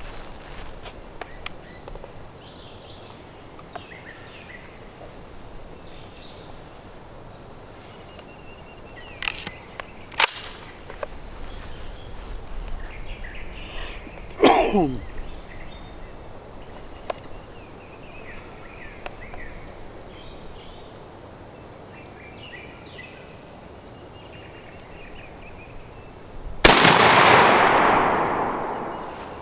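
A single 12-gauge Mossberg 935 semi-auto shotgun shot near the end, firing a 3.5-inch Winchester high-velocity number 5 turkey load. The blast dies away over about two and a half seconds. Small birds chirp faintly throughout.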